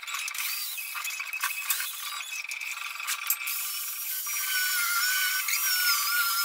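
Electric angle grinder with a flap disc sanding the face of a plywood panel: a steady high motor whine. About halfway through, its pitch starts to waver and dip as the disc is pressed onto the wood.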